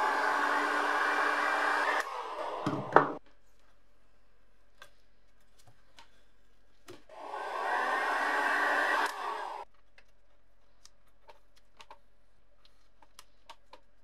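Electric heat gun blowing hot air onto a sticker on a metal case to soften its glue. It cuts off about two seconds in and runs again for about two and a half seconds in the middle. A single sharp knock comes about three seconds in, and faint ticks and scratches of the sticker being picked at fill the quiet gaps.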